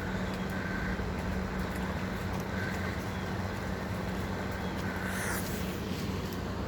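A steady, even mechanical hum, like a motor running at a constant speed.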